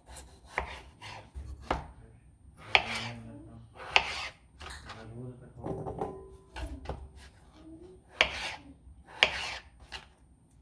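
Knife chopping food on a cutting board: about a dozen irregular strokes, some sharp and some softer.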